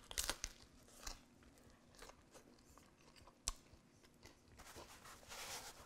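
Faint bite into a meatball sub on crusty broiled sourdough baguette, then chewing: crisp crunching in the first second, then quieter chewing with occasional crackles.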